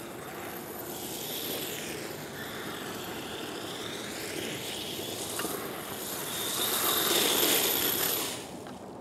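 HobbyKing Rattler 1/8-scale 4WD buggy's brushless electric motor whining as it drives, the pitch rising and falling with the throttle. It is loudest about seven seconds in, then drops off sharply near the end.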